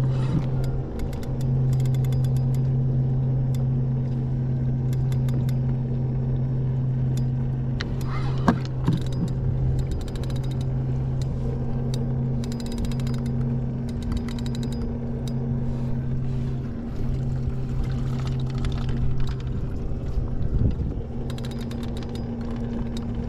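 Steady hum of the kayak's small electric trolling motor, with scattered clicks and knocks from a Shimano Saragosa 8000 spinning reel and rod while a hooked kingfish is being played.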